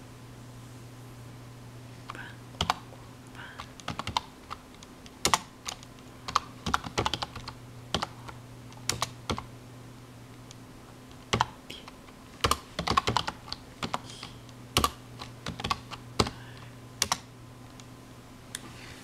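Typing on a computer keyboard: irregular keystrokes, some single taps and some quick runs, with short pauses between, over a steady low hum.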